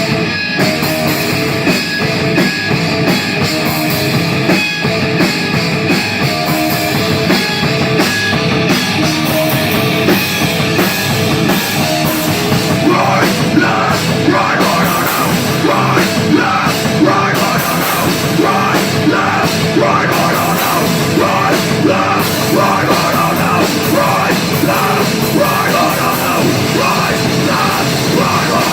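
Rock band playing loud, heavy rock with a drum kit. About halfway through, a choppy rhythmic part comes in over the top.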